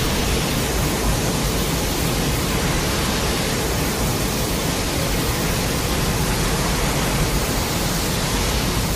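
A steady, even rushing noise from a monster-film sound effect, spread evenly from deep rumble to high hiss.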